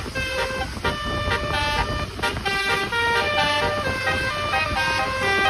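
Multi-note 'telolet' (basuri) bus horn playing a quick melody, its loud steady tones switching pitch every fraction of a second, over a low rumble.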